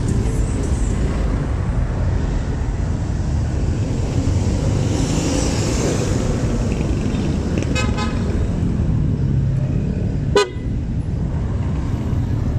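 Motorcycle engine and street traffic rumbling steadily through slow traffic. A short horn beep sounds about eight seconds in, and a sharp, brief sound follows about two seconds later.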